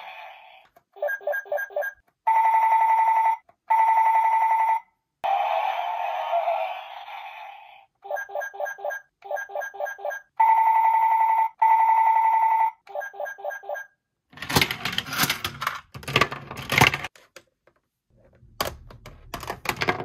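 Electronic sound effects from a battery-powered toy's small speaker: quick trilling beeps, pairs of long steady beeps and a whooshing noise, with the sequence playing through twice. After that come about three seconds of clattering and then a few clicks.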